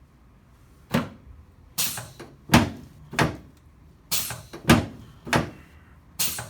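A series of about eight sharp thuds, less than a second apart, from a chiropractic adjusting table as a sacroiliac joint is adjusted.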